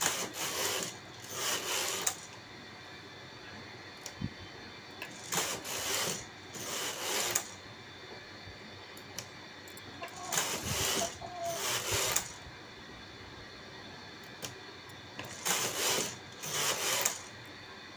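A Brother single-bed knitting machine's carriage sliding across the metal needle bed, a rasping rush as it knits each row. The passes come in four pairs, each pass under a second long, a few seconds apart, with light clicks in the pauses between them.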